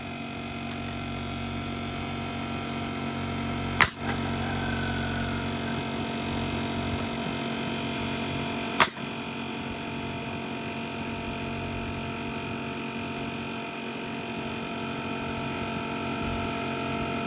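Bostitch air compressor running steadily with a hum, while a Metabo HPT pneumatic nail gun fires twice, about five seconds apart, each a sharp crack of a nail driven into pallet wood.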